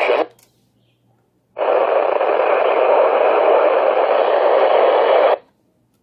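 Steady radio static hiss from a portable radio, switching on abruptly after a second or so of silence and cutting off sharply about four seconds later.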